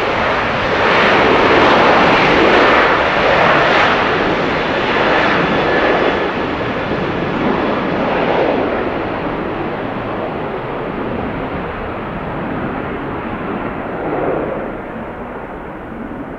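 Jet engines of a Boeing 737-700, its CFM56-7B turbofans, as the airliner rolls along the runway: a loud, steady rushing close by that gradually fades and grows duller as the aircraft moves away.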